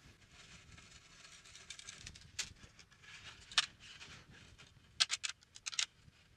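Faint handling noise of loose 12-string acoustic guitar strings being untwisted and threaded: soft rustling and scraping with a few small sharp clicks, then a quick run of clicks near the end.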